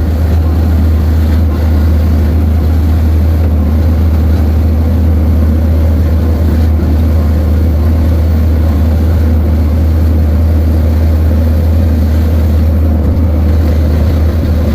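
ASV skid steer's diesel engine running steadily with a loud, even low hum and no changes in speed.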